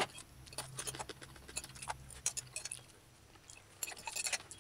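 Metal fork tapping and scraping on a ceramic plate of rice: a scatter of light clicks, with a quiet gap a little past the middle and a busier run near the end.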